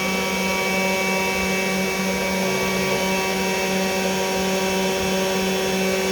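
CNC 3018 desktop router's spindle motor running steadily while milling brass: a constant motor whine with a hum under it.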